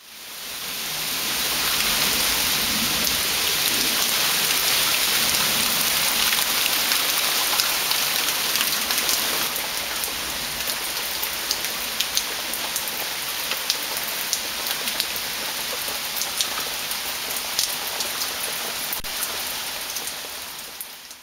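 Steady heavy rain falling on a concrete patio and yard, an even hiss that fades in over the first couple of seconds. Through the second half, sharp close taps of single drops stand out over the hiss.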